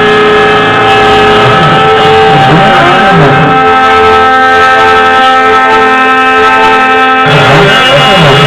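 Loud background music: sustained instrument tones with low notes sliding up and down.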